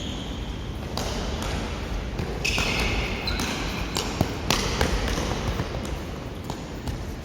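Indoor futsal play: scattered sharp knocks of the ball being kicked and bouncing, with players' footsteps, ringing in a large hall.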